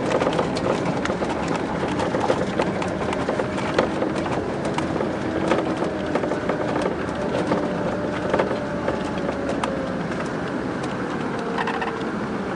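Scania K420 coach's inline-six diesel engine running steadily with road noise and small rattles. Its pitch drifts slowly up and down.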